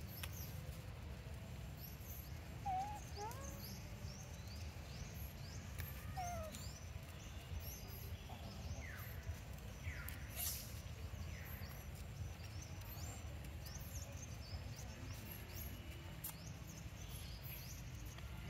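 Outdoor ambience: many short, high bird chirps scattered throughout over a steady low rumble, with a few brief mid-pitched calls about three and four and a half seconds in.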